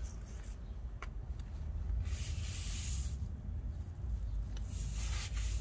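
Soft-bristle brush swishing across wet brick as it spreads diluted hydrochloric-acid brick cleaner, one stroke about two seconds in and more near the end, over a low steady rumble.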